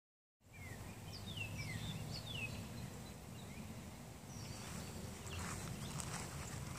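Bird calling: several short whistles that slide downward in pitch during the first two seconds or so, over a steady low rumble of outdoor background noise. A few faint clicks come near the end.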